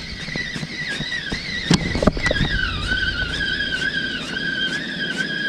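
Spinning reel being cranked to retrieve the line, its gears giving a continuous wavering whine that drops in pitch a little past two seconds in, with a couple of sharp knocks around then.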